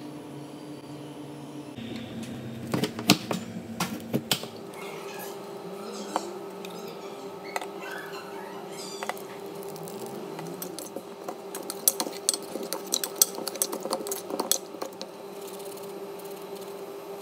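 Clinks, taps and scrapes of kitchen utensils against a stainless-steel mixing bowl, scattered and irregular, over a steady low hum; the clinks thin out in the last couple of seconds.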